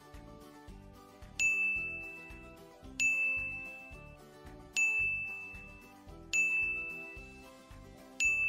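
Five bright bell dings, evenly spaced a little under two seconds apart, each ringing out and fading: a notification-bell sound effect, over soft background music with a steady beat.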